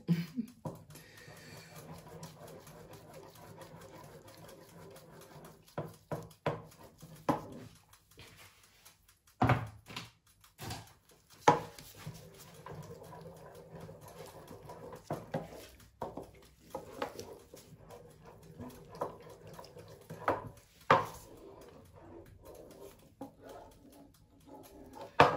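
Wooden spatula stirring thick corn porridge in a pot, with scattered knocks and scrapes of the spatula against the pot at irregular moments over a faint steady hum.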